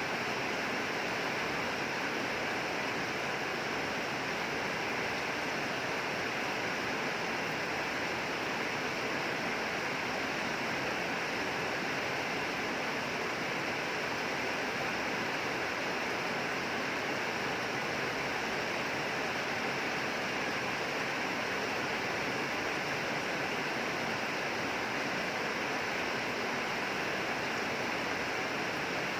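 Steady rain falling, an even, unbroken hiss of drops with no separate drips, thunder or other events.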